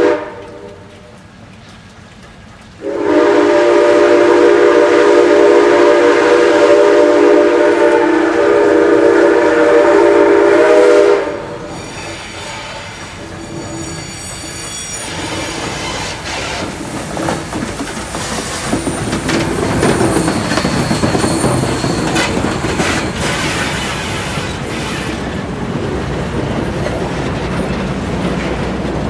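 Steam whistle of Canadian Pacific #2816, a 4-6-4 Hudson steam locomotive: a short toot, then one long blast of about eight seconds that cuts off sharply. After it comes a steady rushing train noise with scattered clicks, growing louder toward the middle.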